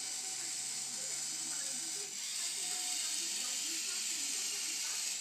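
Small Arduino robot's two DC gear motors whirring as it drives and turns, over a steady hiss.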